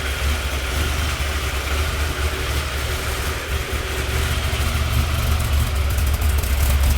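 Chevrolet Chevelle's 396 big-block V8 with a BDS supercharger idling steadily through a newly built, quieter exhaust, getting slightly louder near the end.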